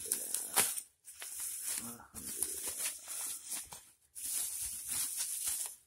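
Plastic bubble wrap crinkling and rustling as hands pull it open and unwind it, in four bursts with brief pauses between them.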